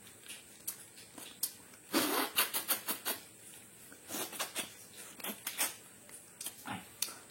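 Close-up mouth sounds of a person eating: lip smacks and small wet chewing clicks in a quick cluster about two seconds in and again from about four to six seconds in.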